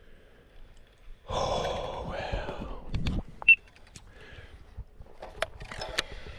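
A loud breathy whoosh, starting about a second in and lasting under two seconds, then a few sharp clicks and ticks as the baitcasting reel is worked during a lure retrieve.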